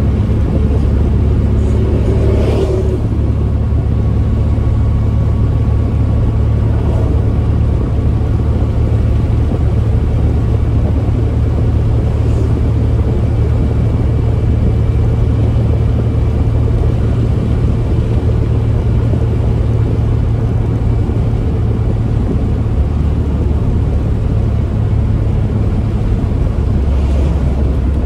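Porsche 914's air-cooled flat-four engine and road noise heard from inside the cabin while cruising, a steady low drone. A brief whoosh about two seconds in, and a couple more later, and the engine note drops slightly near the end.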